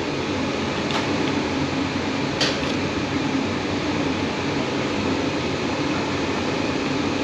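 Steady, even background hiss and hum with a couple of faint clicks.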